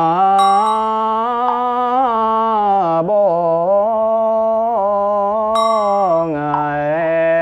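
Slow Vietnamese Buddhist liturgical chanting: a voice holding long, drawn-out sung syllables that glide slowly up and down in pitch. A bell is struck twice, about half a second in and again about five and a half seconds in, the second strike ringing on.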